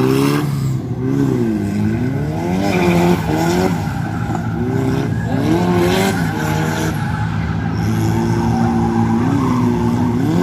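Drift car engine revving hard, its pitch rising and falling again and again as the throttle is worked through a drift, with the tyres skidding and squealing.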